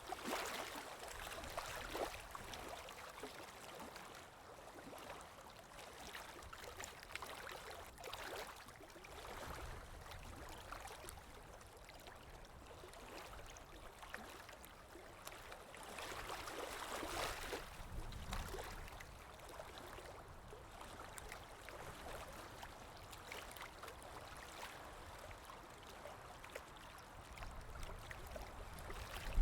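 Running water flowing and gurgling, rising and falling in slow swells, a little louder about halfway through.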